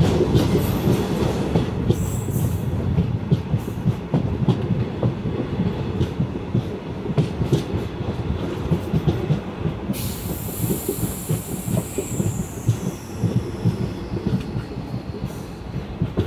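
12-car MEMU electric train running on the rails, its wheels rumbling and rattling over the track. About ten seconds in a high hiss starts, with a whine that falls in pitch as the train slows into a station.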